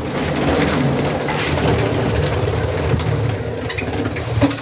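Dense, continuous chatter of many caged budgies calling at once, cutting off suddenly near the end.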